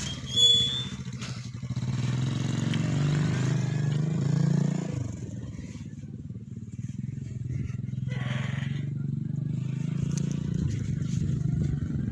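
A metal gate squeals briefly as it is pushed open. After that an engine runs steadily throughout, its low hum swelling and easing.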